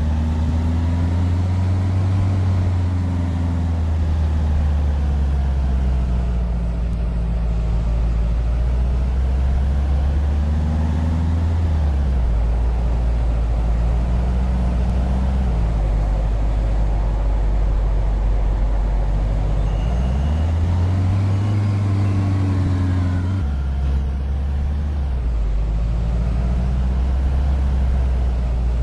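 A vehicle running continuously, a steady low hum whose pitch rises and falls several times as it changes speed, with a few sudden shifts in pitch.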